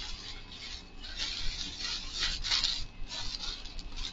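Clear plastic packaging bag with a garment inside crinkling and rustling as it is handled, in an uneven run of crackles.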